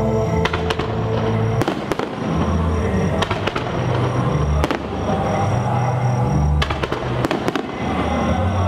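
Fireworks going off in a display, with sharp cracks and bangs every second or so, over music with held low notes.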